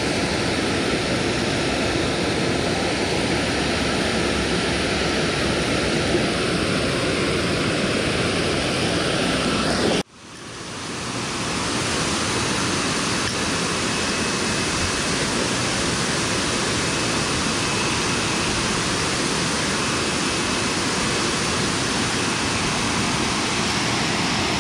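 Steady roar of water pouring over a dam spillway into the river. The sound drops out abruptly about ten seconds in and fades back up within a couple of seconds.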